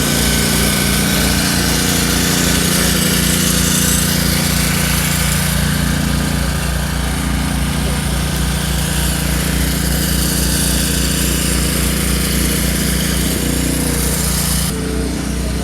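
Pressure washer running steadily at a car wash: a motor hum under the hiss of the water jet. The high spray hiss cuts off near the end while the machine keeps running.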